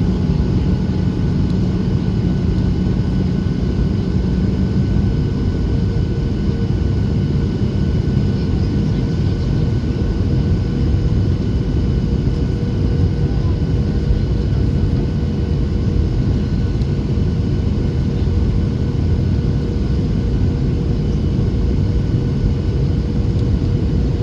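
Boeing 737-800's CFM56-7B engines and airflow making a steady, even rumble during the approach, with faint steady engine tones over it. About five seconds in, a low hum gives way to a slightly higher steady tone.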